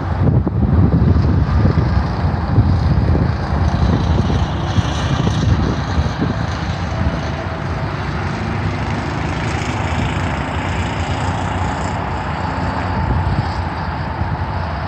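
Wind buffeting the microphone: a heavy, ragged low rumble, strongest in the first half and easing after about six seconds.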